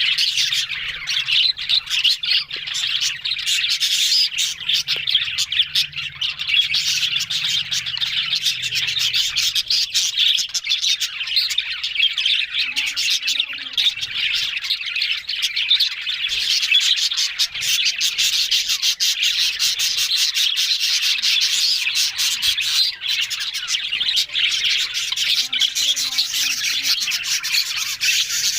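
A flock of budgerigars chattering without pause, a dense stream of high chirps and squawks.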